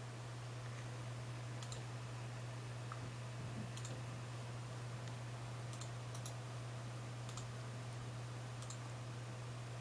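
Computer mouse clicking, a handful of sharp single and double clicks a second or two apart, over a steady low hum.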